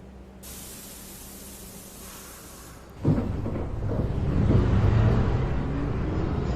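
A short air hiss from a NYC subway shuttle train's air brakes, then about three seconds in a sudden loud rumble as the train starts pulling out along the platform.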